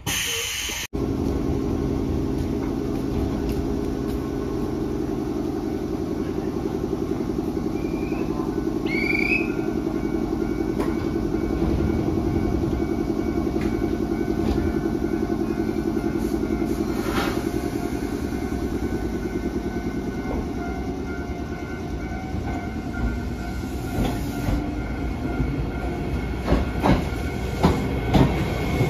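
Iyotetsu 3000 series electric train standing at the platform with a steady equipment hum, then pulling away. Its motor tone rises, and the wheels click over the rail joints, louder toward the end.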